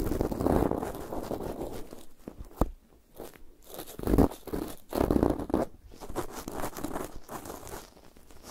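A thin stick scratched and rubbed against the grille of a Zoom H6 recorder's microphone capsule, as in ear-picking ASMR: close, uneven scraping strokes. There are short pauses about three seconds in and near the end, and a single sharp click just before the first pause.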